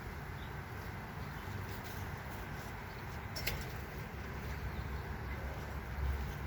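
Honey bees humming steadily around an opened hive, the hum of a colony stirred up by the inspection. A single sharp click about three and a half seconds in.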